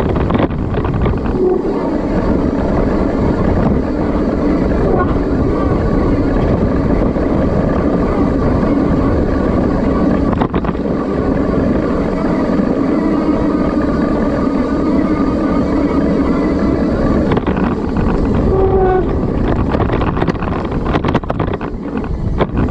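Steady rush of mountain-bike riding noise: wind buffeting the microphone over the sound of the bike rolling down a dirt trail.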